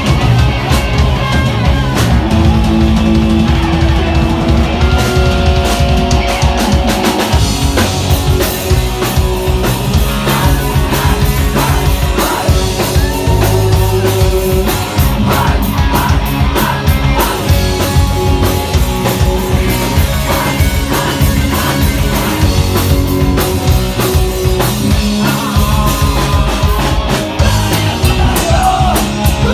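Rock band playing live and loud: electric guitars and a drum kit.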